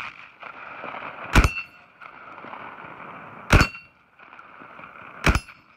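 Saiga-12 semi-automatic 12-gauge shotgun firing rifled slugs: three shots about two seconds apart. The shots are answered by a clang from the steel plate targets as they are hit.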